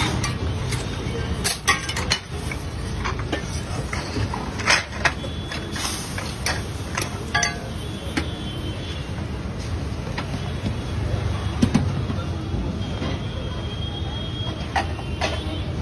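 Steady low background rumble of a busy food stall, with scattered sharp metal clinks and taps from utensils on the flat cooking griddle.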